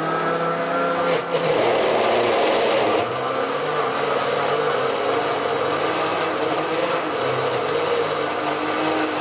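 Electric blender grinding fresh strawberries with sugar: a steady, loud motor whine over a churning hiss, its tone shifting a little about a second in and again about three seconds in.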